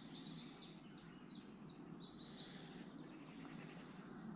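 A songbird singing a run of quick, repeated high notes, about five to the second, over faint outdoor background noise.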